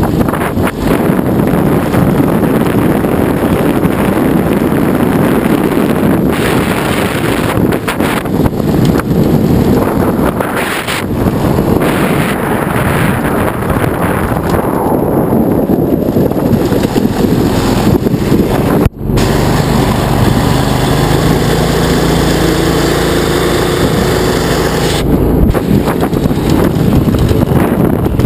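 Go-kart's small engine running while driving, with heavy wind buffeting on the microphone. About two-thirds of the way through there is a brief sudden break, after which the engine's steady note comes through more clearly under less wind.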